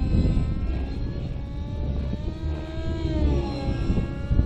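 The MAX-55HZ-R glow engine of a T-REX 600N nitro RC helicopter, breathing through an MS55-3D ZERO.SP tuned muffler, running at high revs in aerobatic flight. Its pitch sweeps down and up several times as it flies, over a low rumble.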